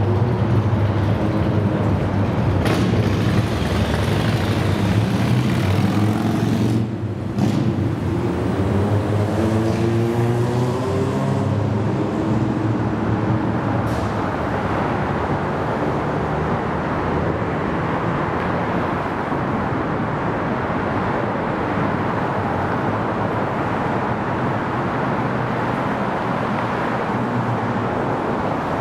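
City street traffic beneath an elevated expressway: cars and trucks passing with a constant wash of road and tyre noise. For the first dozen seconds a vehicle engine's hum stands out, its pitch sliding as it passes. Brief sharp knocks come about three seconds in and again about fourteen seconds in.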